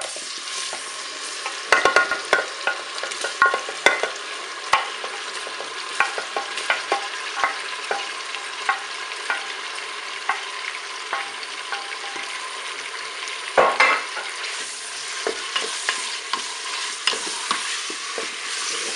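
Honey and vinegar sauce sizzling and bubbling in a Cookeo multicooker's bowl as duck breast slices are slid in and stirred with a wooden spatula, with many light clicks and knocks, loudest about two seconds in and again near fourteen seconds.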